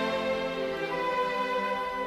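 Background instrumental music with long held notes.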